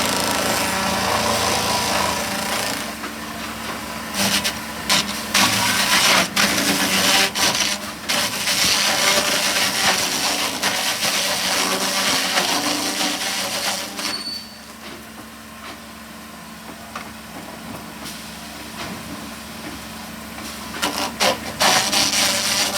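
Bark being stripped from a hard maple log by a motor-driven tool, with the engine running steadily under rough scraping and chattering. The scraping drops off sharply about two-thirds of the way in and picks up loudly again near the end.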